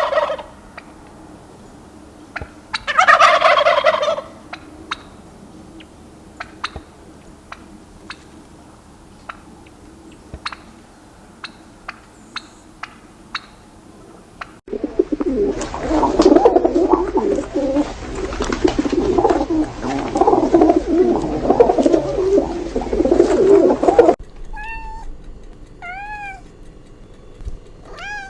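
A turkey gobbling, once right at the start and again about three seconds in, followed by a run of short, sharp clicks. After an abrupt cut comes about ten seconds of dense, noisy clamour, then short rising-and-falling calls repeating near the end, like a kitten mewing.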